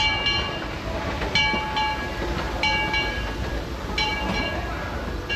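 Steam locomotive's bell ringing in a steady swinging rhythm, two strikes close together about every second and a half, over the low rumble of the waiting train.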